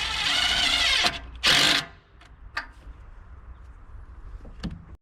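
A handheld power tool, likely a drill or driver, runs for about a second to snug up a hose clamp's fastener, then gives a second short burst, followed by light clatter.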